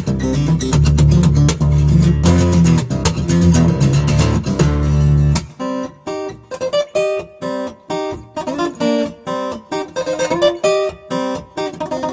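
Background music on acoustic guitar. It is strummed over a bass line at first; about halfway through the bass drops out and it turns to sparser single notes.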